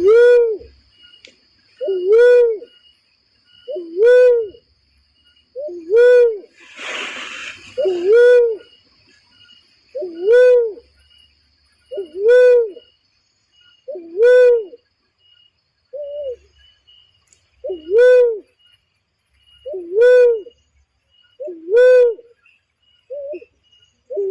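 Barred cuckoo-dove (uncal loreng) giving a low coo that rises and falls, repeated about every two seconds, as a lure call for trapping the bird. A brief hiss about seven seconds in.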